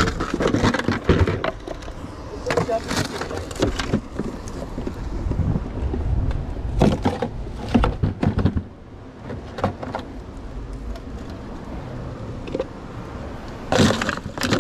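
Scattered knocks, scrapes and rattles of a plastic tub of empty plastic bottles and wrappers being carried over rough rock, with footsteps on the rock and a low rumble of handling on the microphone; a quick run of plastic clicks near the end as a bottle is pushed into the tub.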